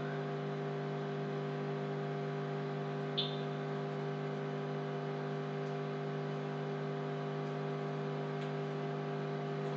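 Steady electrical mains hum, a low buzz with a stack of even overtones on the recording line, and one faint short tick about three seconds in.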